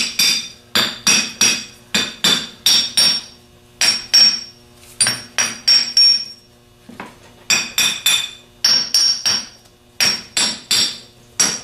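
Hammer tapping the cast nose housing of a Delco 37MT starter, fitted on the armature shaft, in quick runs of three to five ringing metallic strikes with short pauses between. The tapping breaks the new bushing in on the shaft so the armature spins freely.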